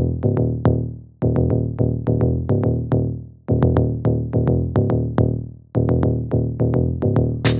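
Electronic music with a steady beat: a phrase of sustained chords fades out and starts again about every two seconds, and a fast high ticking pattern comes in near the end.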